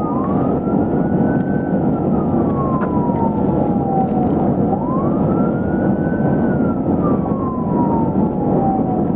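Police car siren on a slow wail, its pitch rising and then gliding down again about every four and a half seconds, over loud steady engine and road noise during a high-speed pursuit.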